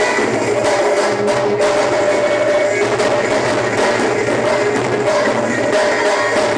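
Loud, continuous music.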